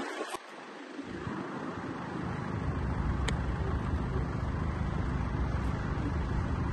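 A car engine running, a low steady rumble that fades in over the first two seconds or so and then holds, with one faint click about three seconds in.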